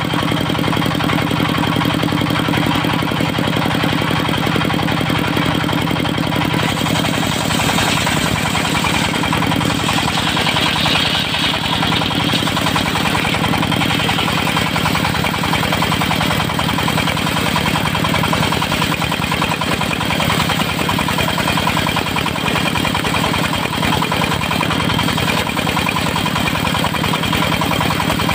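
Diesel engine of a mobile circular-saw sawmill running steadily, with a brighter hiss joining it about seven seconds in and fading a few seconds later.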